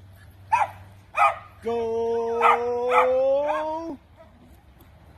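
A dog barking in short, sharp barks, five in all. Under the last three, a loud held tone with a slight upward slide sounds for about two seconds and cuts off suddenly.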